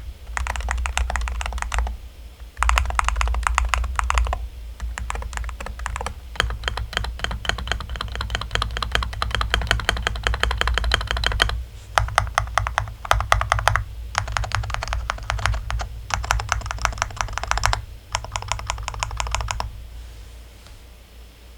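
Modifier keys on an Angrymiao Retro 63 RT keyboard tapped in rapid runs, one key after another, each run with its own pitch of clack. Short pauses fall between the runs, and the clicking stops about twenty seconds in.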